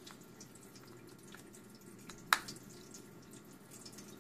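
A single sharp metallic click a little over two seconds in, as a tiny laptop screen-mounting screw is set into its hole with a small screwdriver, among faint small handling ticks.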